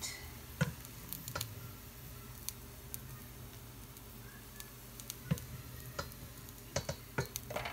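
Irregular light clicks and taps of a serving utensil as browned ground beef is spooned onto a cheese-topped tortilla on a griddle, over a faint steady hum.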